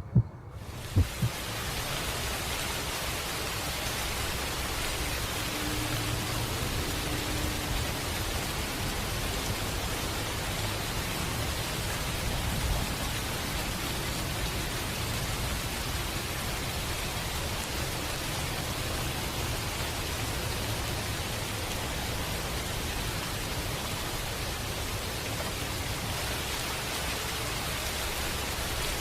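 Steady rain-sound ambience, an even hiss of falling rain, opening with two low thumps about a second apart.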